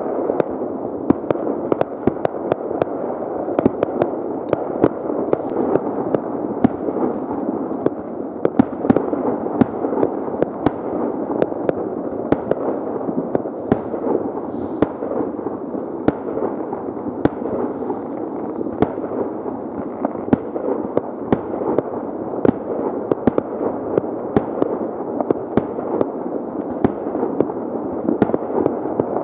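Many fireworks and firecrackers going off at once: a constant dull rumble of distant bangs with frequent sharper cracks on top.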